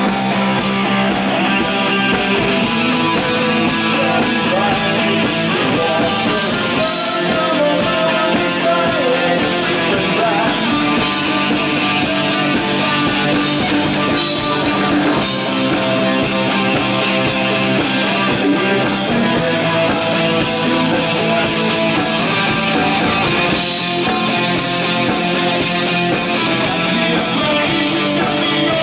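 Loud rock music with guitar and drums, running steadily throughout.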